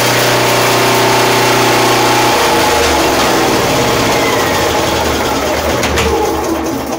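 Yamaha EF2600 generator's single-cylinder four-stroke engine running steadily. A little over two seconds in, its even hum breaks up into an uneven, lower chugging as the automatic changeover switches the load to mains and cuts the generator off, and the engine starts running down.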